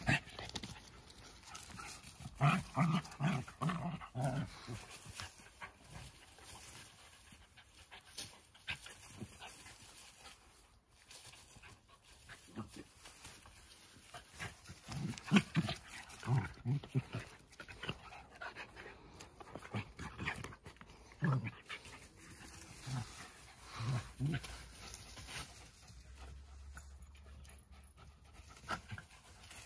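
Jack Russell terriers panting, with clusters of short, low dog vocalizations every few seconds, loudest a few seconds in and again around the middle.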